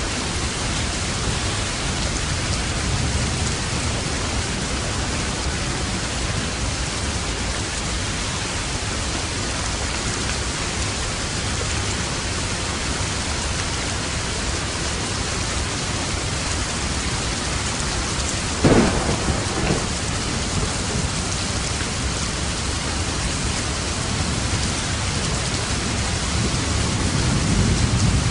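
Steady rain falling in a thunderstorm. A sharp thunder crack comes about two-thirds of the way through, with a weaker one a second later. A low rumble of thunder swells near the end.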